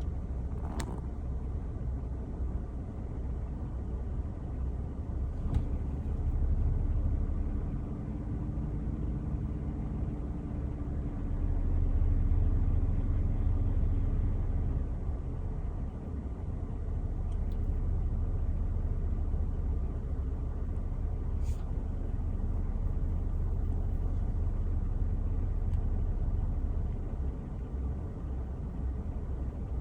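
A motor vehicle running with a steady low rumble, its engine tone coming through more clearly and louder for a stretch in the first half. There are a couple of faint clicks.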